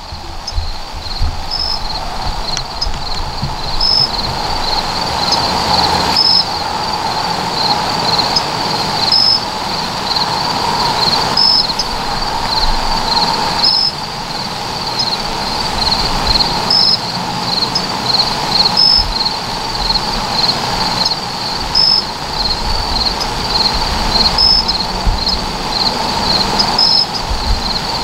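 Evening insect chorus of crickets, trilling steadily, with a sharper chirp repeating about every two seconds. A low, uneven rumble runs underneath.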